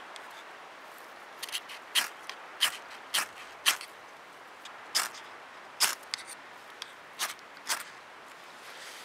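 A Mora knife scraped hard down a ferro rod, throwing sparks onto old man's beard lichen tinder: about a dozen sharp, quick scrapes at uneven intervals, from about a second and a half in to near the end. The tinder is slow to catch, so the strikes are repeated.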